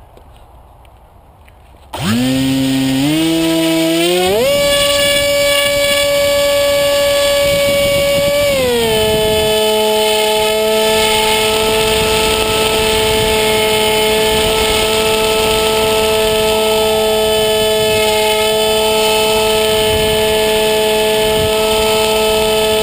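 Electric motor and propeller of a small foam RC wing, picked up loud and close by a camera mounted on the wing. About two seconds in the motor starts with a rising whine and steps up to full throttle, eases back to a lower pitch about six seconds later, and then holds a steady cruise whine.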